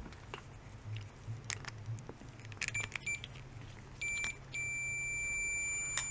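Multimeter continuity tester beeping as its probe tips are pressed onto the switch's copper contacts: a brief chirp a little under three seconds in, a half-second beep at four seconds, then a steady beep held to the end, which shows the contacts are closing the circuit when forced together. Light clicks of the probe tips touching the contacts come before.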